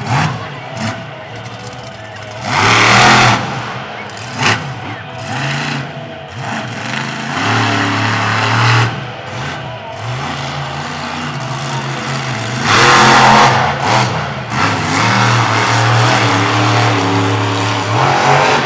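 Equalizer monster truck's supercharged V8 engine revving hard through a freestyle run, its pitch rising and falling with the throttle. There are two loud full-throttle surges, one about three seconds in and one past the middle, and a sharp bang about four and a half seconds in.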